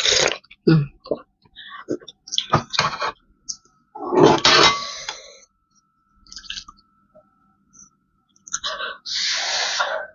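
Close-miked eating of spicy noodle soup: a slurp of broth from a spoon, small wet chewing and mouth clicks, a loud slurp about four seconds in, and a long slurp near the end as noodles are sucked in from chopsticks.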